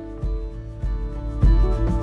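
Background music: a gentle plucked guitar track with held notes.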